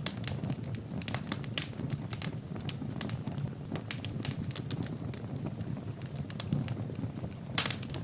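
Wood fire burning in a fireplace, crackling and popping irregularly over a low steady rumble, with a quick cluster of pops near the end.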